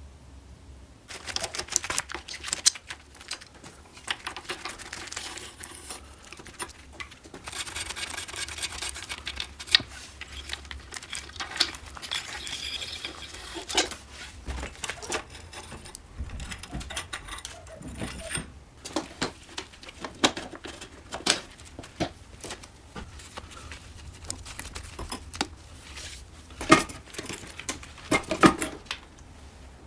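Metal parts and hand tools clicking, rattling and knocking as a Riga 12 moped is dismantled by hand, with a denser stretch of clatter in the middle and a few sharp knocks near the end.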